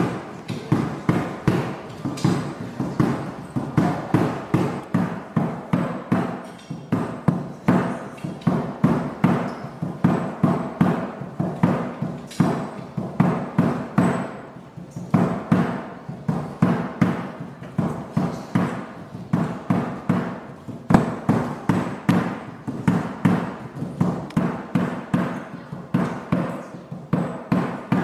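Rhythmic music with a sharp, evenly spaced beat about twice a second, each beat dying away quickly, over held tones.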